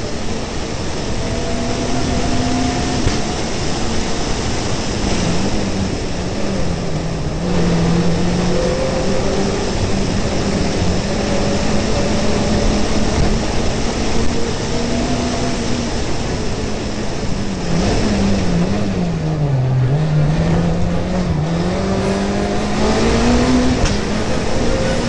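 Rally car engine heard from inside the car at speed on a stage, held at high revs with short dips at gear changes. Past the middle it drops sharply several times, braking and downshifting for corners, then revs back up as the car accelerates, over steady tyre and road noise.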